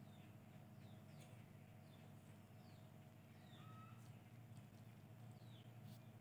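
Near silence: a faint steady low hum, with faint short high chirps scattered through it, each falling in pitch.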